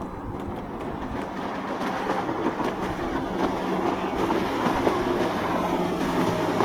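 Boat engines droning steadily and growing louder as a boat approaches through the inlet, with a few short knocks.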